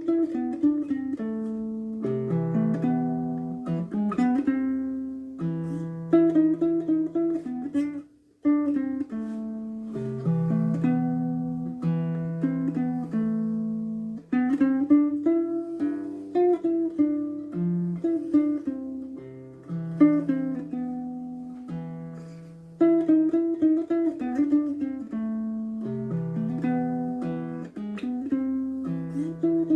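Baritone ukulele strung with Perry's low-octave GCEA strings, tuned an octave below standard ukulele tuning and at very low tension, playing a chord progression with notes picked one after another over deep bass notes. The playing breaks off briefly about eight seconds in.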